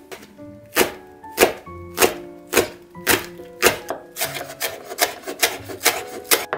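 Kitchen knife chopping green onion on a wooden cutting board: sharp, evenly spaced strokes about every half second at first, coming about twice as fast after about four seconds.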